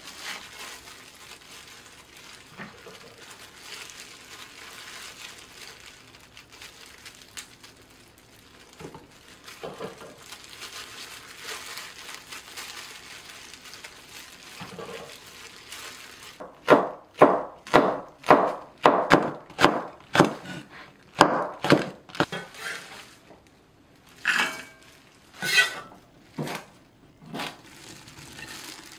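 A cleaver chopping green chili peppers on a wooden cutting board: a run of about a dozen sharp knocks at roughly two a second, then a few more strokes a couple of seconds later. Before the chopping there is only faint rustling and handling noise.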